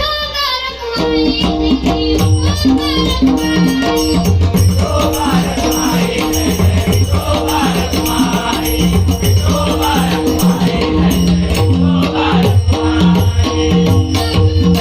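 Instrumental interlude of a Marathi devotional abhang: a steady rhythm of percussion with a jingling rattle over a repeating bass figure, starting about a second in after a pause in the singing.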